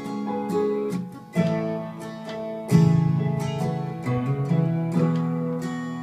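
Gibson Hummingbird dreadnought acoustic guitar strummed with a capo on, playing a chord progression; a brief lull about a second in, then a strong new chord, with another loud chord accent near the middle.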